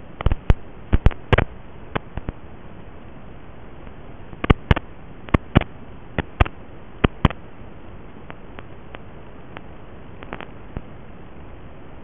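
Radio static from an analog FPV video link: a steady hiss broken by irregular sharp clicks and crackles, bunched in two spells near the start and around the middle, thinning out later. No motor sound is heard.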